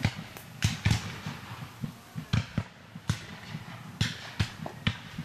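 Scattered black-powder musket fire: about ten irregularly spaced sharp pops, each with a low thump, over a steady outdoor background.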